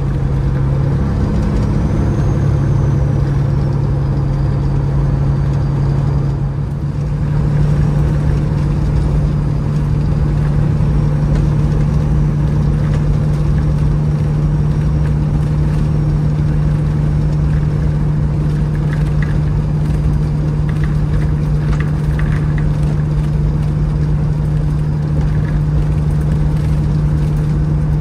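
Peterbilt 379 semi truck's diesel engine droning steadily, heard from inside the cab at highway speed. A brief dip about six seconds in, after which the low hum sits slightly higher.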